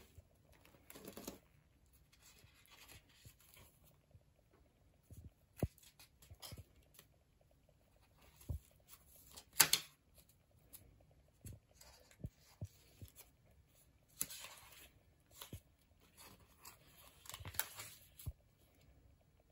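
Pages of a thick handmade paper journal being turned and handled: scattered paper rustles and soft knocks with quiet gaps between them, the loudest a sharp rustle about ten seconds in.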